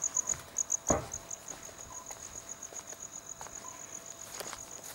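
Crickets chirping in a steady high-pitched trill, pulsing unevenly in the first second, with a single knock about a second in.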